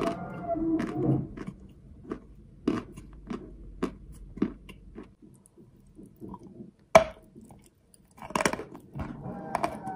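A person biting and chewing a piece of chalk, with irregular crunches. About seven seconds in there is one sharp, loud crack, and a quick run of crunches follows soon after.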